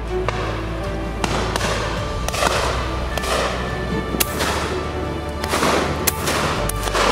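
Several shotgun shots spaced a second or so apart, each trailing off in a long fading echo, over background music.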